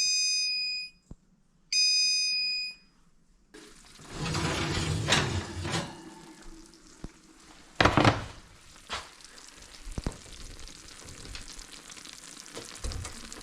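Two electronic beeps, each about a second long, from an oven's control panel as it is set to 375 °F to bake. They are followed by kitchen handling noise with a few knocks, the loudest about eight seconds in.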